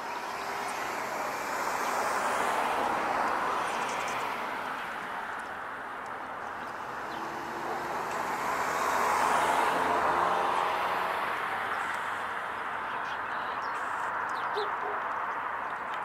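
Road traffic passing: the rush of a vehicle swells and fades around two to three seconds in, then a second, louder pass peaks around nine to ten seconds in.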